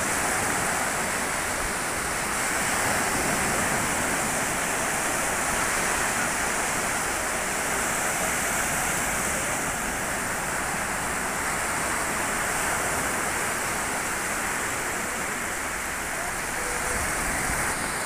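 Sea surf: small waves breaking and washing over the sand in a steady rush.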